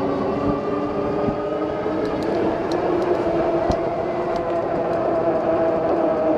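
Lectric step-through e-bike ridden along a road: steady rolling and wind noise with a humming drone that drifts slowly in pitch, and a few light ticks.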